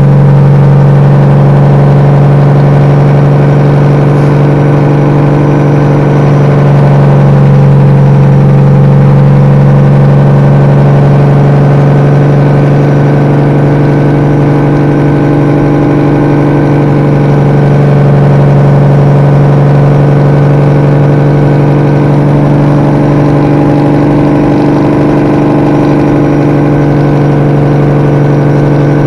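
Detroit Series 60 diesel in a 1998 Peterbilt 379 running its jake brake (engine compression brake) at about 1450 rpm on a loaded downhill grade, a loud, steady exhaust note out of 7-inch stacks with slight swells. Heard from inside the cab with the windows half open.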